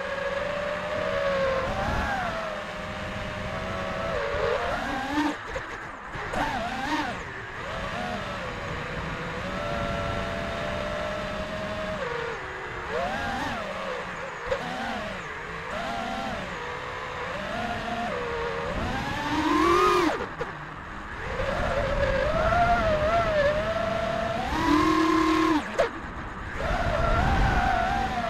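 FPV quadcopter's Xing 2450kv brushless motors and propellers whining on a 4S battery, the pitch sweeping up and down constantly with the throttle, over a low rush of wind noise.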